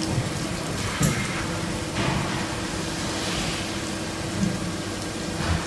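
Metal lathe with a spherical turning attachment running: a steady hum under a noisy hiss, with a few light knocks.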